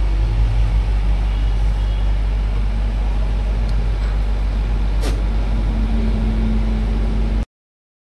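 Steady low engine hum, with a single sharp click about five seconds in; the sound cuts off suddenly near the end.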